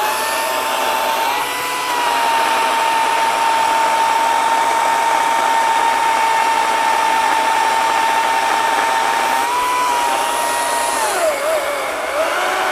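Ryobi 40V HP brushless 20-inch cordless chainsaw cutting through a wet oak log: a steady, high electric motor whine with the chain running through the wood. The pitch dips and wavers near the end as the saw is loaded harder in the cut.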